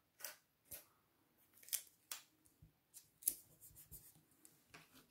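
Faint, scattered short rustles and taps of paper and drawing tools being handled on a desk, about seven of them spread unevenly.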